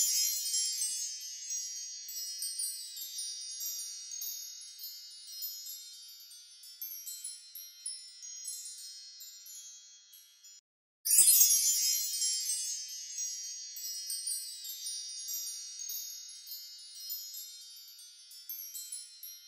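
Fairy dust sound effect: a shimmering cascade of high tinkling chime notes, loudest at its onset and slowly fading. A brief gap about eleven seconds in, then a fresh burst starts and fades again.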